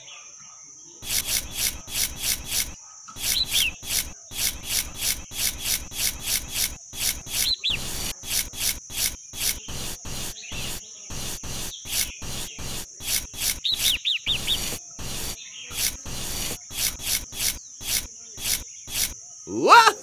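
Miniature plastic trowel rubbing and scraping over wet cement to smooth it, in short repeated strokes about three a second. A steady high chirring runs behind the strokes.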